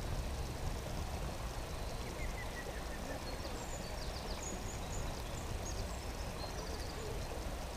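Outdoor ambience by a pond: a steady low rumble, with faint high chirps of small birds between about two and five seconds in.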